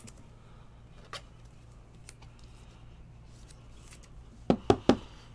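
Panini football trading cards being handled and flipped through by hand: faint ticks, then a quick run of three sharp clicks about four and a half seconds in, over a low steady hum.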